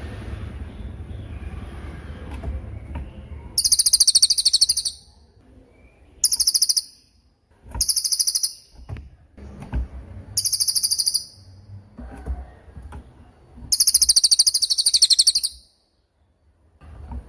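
Cililin bird singing in sharp, very rapid high-pitched trills. It gives five separate bouts of about a second each, the longest near the end, with short pauses between them.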